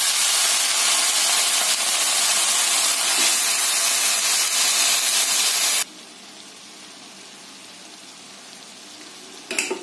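Wet, freshly washed drumstick (moringa) leaves sizzling loudly in hot oil in a steel kadai, a steady hiss that cuts off suddenly about six seconds in, after which only a faint hiss remains.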